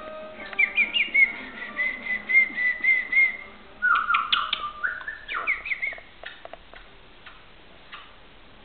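Budgerigar chirping: a quick run of short repeated whistled chirps for about three seconds, then a lower chattering phrase and a last burst of chirps around five to six seconds in.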